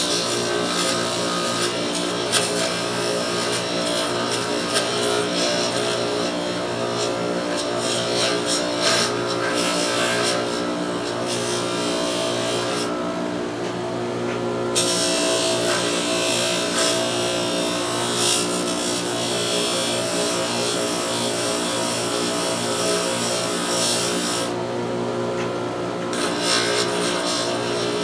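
Motor-driven fiber abrasive wheel running with a steady hum while steel needle-nose pliers are pressed against it, a rasping hiss of rough polishing. The hiss stops twice for a second or two as the pliers come off the wheel, while the motor keeps running.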